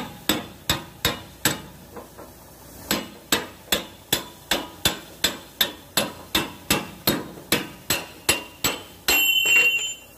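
Hammer blows on a steel bar held against a truck's leaf-spring mounting bolt, driving the bolt out. There are five sharp metallic strikes, a short pause, then a long steady run at about three a second. A brief metallic scraping near the end comes as the bolt slides free of its bush.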